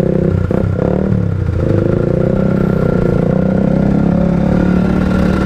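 Motorcycle engine running at low speed in stop-and-go traffic. The revs dip and pick up again about a second in, then hold steady.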